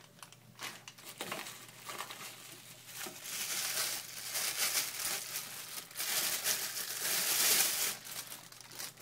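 Crinkling, rustling plastic packaging being handled and unwrapped, with a few light knocks. The rustling grows louder in the second half.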